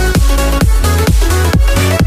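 Electronic dance music with a steady kick-drum beat, about two beats a second, under held synth notes.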